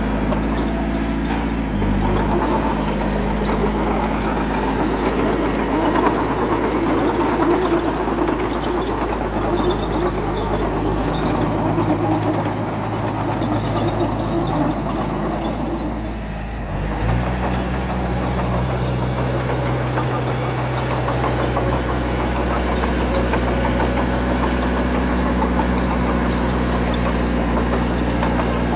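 Diesel engine of heavy earthmoving equipment running, its pitch shifting about two seconds in and again around seventeen seconds, where it settles into an even, steady note.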